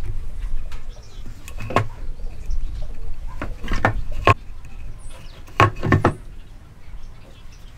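A wooden beam being handled on a wooden workbench: a string of light knocks and clacks, several in quick succession about halfway through, over a steady low rumble.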